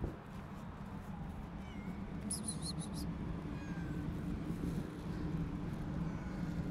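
Cats meowing faintly over a steady low hum.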